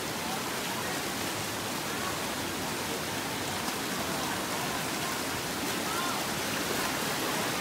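Steady rushing of flowing stream water, an even hiss with no beat or break.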